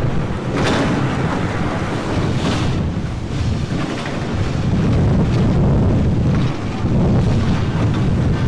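Wind buffeting the microphone: a loud, uneven low rumble, with a couple of faint knocks in the first few seconds.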